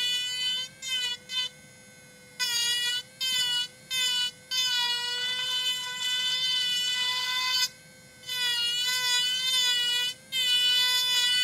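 Battery-powered micro motor rotary carver with a diamond bit, smoothing a basswood carving: a steady high whine that grows louder and harsher in uneven spells, from a fraction of a second to a few seconds long, as the bit works the wood.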